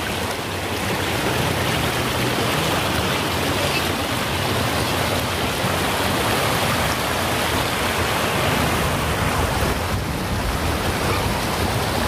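Waterfall water pouring and splashing, a loud, steady rush of flowing water.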